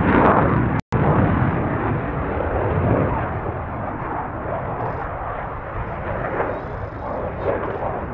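Belgian Air Force F-16 jet engine roaring with a rough, rumbling crackle as the fighter manoeuvres overhead, loudest at the start. The sound cuts out for an instant just under a second in.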